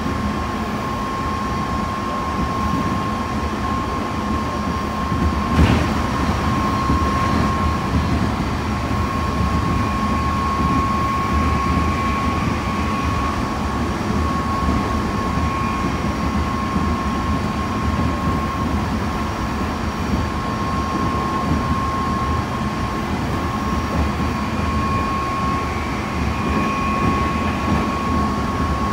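Interior running noise of a Meitetsu 3100 series electric train at steady speed, with a steady high tone over the rumble. There is a single sharp knock about six seconds in.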